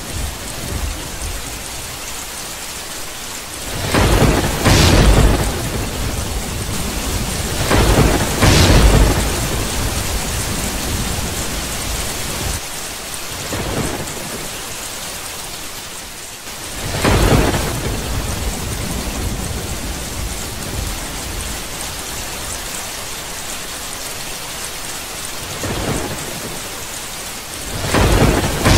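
Steady heavy rain with thunder rumbling through it. There are four loud rolls, each swelling and fading over a second or two: about four seconds in, about eight seconds in, just past the middle and at the very end. Fainter ones come in between.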